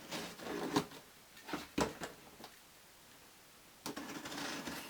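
Packing tape being ripped and a cardboard parcel torn open by hand: a stretch of rasping tearing, two sharp knocks, a pause, then more tearing near the end.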